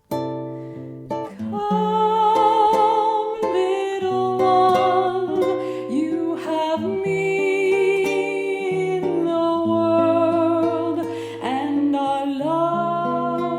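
Bossa nova duo: acoustic guitar plucking chords under a held melody line with vibrato and a few sliding notes.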